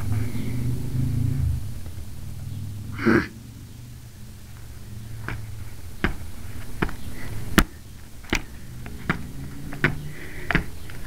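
Camera handling noise: a low rumble, a brief loud rustle about three seconds in, then a string of irregular sharp clicks and knocks, the loudest just past halfway.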